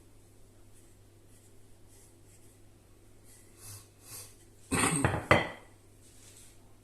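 Kitchen utensils and dishes clattering on a worktop: a few light knocks, then a short, loud metallic clatter almost five seconds in, with a brief ring.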